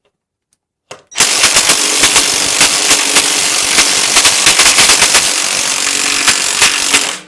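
Cordless impact wrench hammering a 6-inch lag bolt in. It starts suddenly about a second in, runs flat out at a rapid rattle for about six seconds, and stops as the bolt is sunk.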